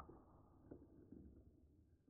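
Faint rolling of small marbles circling a plastic marble-run funnel, with a few light clicks, the sharpest right at the start.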